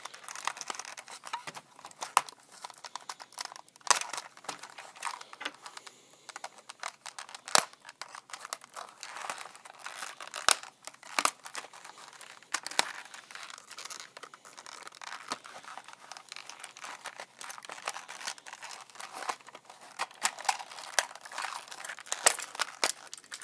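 Toy packaging being handled and pulled apart: irregular crinkling, tearing and sharp clicks and snaps as a Trackmaster toy engine is freed from its box.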